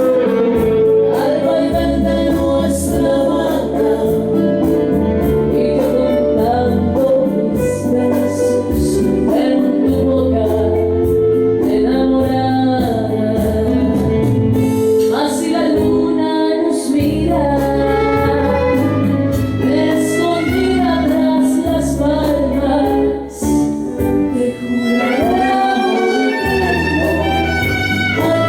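Bolero song: a singing voice with instrumental accompaniment, including bowed strings over a steady bass line.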